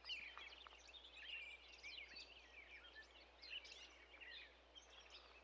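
Faint chorus of small birds chirping and twittering, many short overlapping calls.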